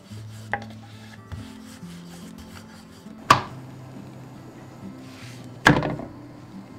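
Soft background music with sustained low notes over a wooden rolling pin rubbing across paratha dough on a wooden board. About three seconds in there is a sharp slap as the rolled paratha is dropped onto the iron tawa, and a second, longer loud knock near the end.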